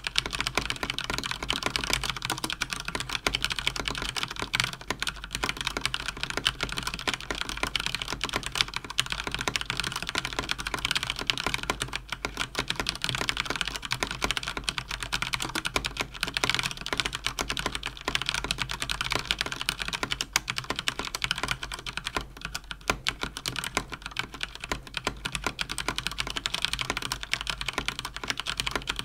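Fast, continuous typing on a Cougar Attack X3 RGB mechanical keyboard with Cherry MX Speed switches: a dense, unbroken clatter of key presses and bottoming-out clicks.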